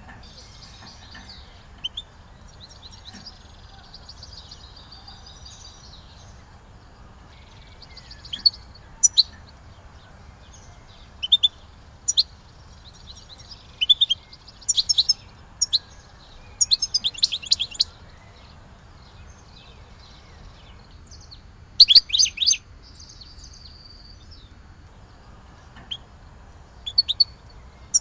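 European goldfinch singing in the Algerian 'Sidi Youcef' song style: scattered phrases of quick twittering chirps and trills with pauses between them, over a steady low hiss.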